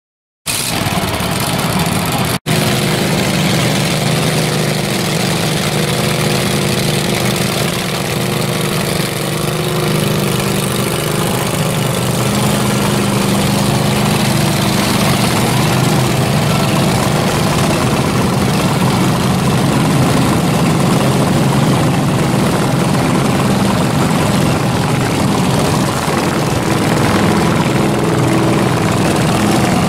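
Riding lawn mower engine running steadily, starting about half a second in with a momentary dropout shortly after.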